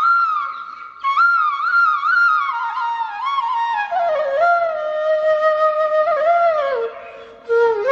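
Music: a single melodic line on a wind instrument, slow with ornamented turns, drifting down in pitch and pausing briefly twice.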